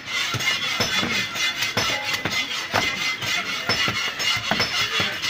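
A large knife chopping fish on a wooden chopping block: a string of irregular knocks as the blade strikes through the fish into the wood, a few each second.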